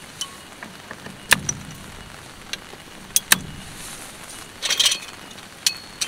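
Camping cot being fitted with extra legs: several sharp plastic-and-metal clicks as the legs are levered onto the frame, two of them close together, with a short rustle of fabric and gear shortly before the last click.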